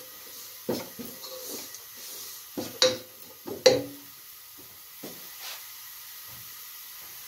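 Wooden spoon stirring and scraping roti crumbs roasting in ghee in a nonstick pot, with several knocks against the pan, the two loudest about three and three and a half seconds in. A faint steady sizzle continues under it and on after the stirring stops.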